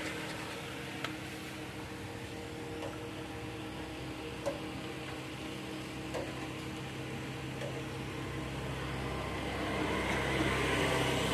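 Steady mechanical hum with a few faint clicks; a low rumble grows louder near the end.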